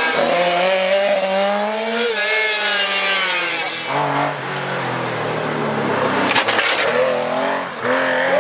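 Historic rally cars at full race pace on a tarmac stage: a white rally car's engine revving up and down through a hairpin, then a yellow Porsche 911's flat-six taking over at about four seconds, climbing through the revs. There are a few sharp cracks about six and a half seconds in.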